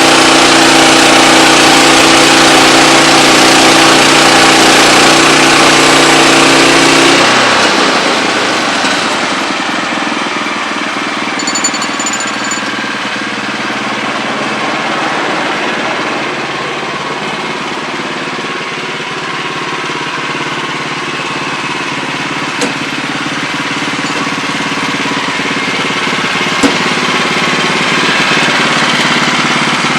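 Wood-Mizer LX25 band sawmill running, its engine and blade going steadily with a pitched hum. About seven seconds in, the sound drops and changes to a quieter, rougher running sound that slowly builds again.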